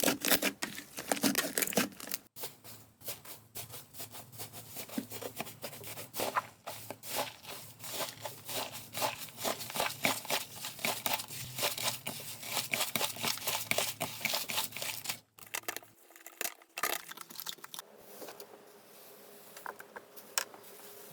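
Slime being squeezed and pressed by hand, making rapid crackling and popping clicks. Near the end it turns much quieter, with only sparse soft clicks.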